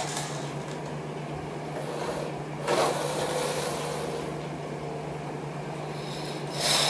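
Plastic toy cars being set off and rolling across a tiled floor: a click at the start, a rasping whirr of wheels about two and a half seconds in that fades over a second or so, and another burst of whirring near the end, over a steady low hum.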